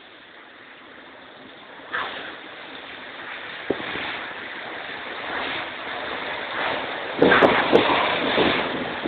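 Cyclone wind: a steady rushing that builds from about two seconds in, with strong gusts buffeting the phone's microphone near the end.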